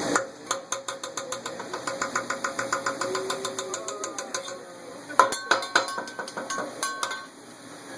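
Metal hibachi spatula and knife clattering rapidly on the steel griddle, about six taps a second, then several louder ringing metal clangs.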